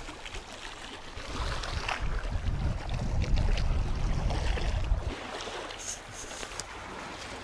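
Wind rushing over the microphone of a camera on a moving bicycle, with heavier low buffeting from about two to five seconds in.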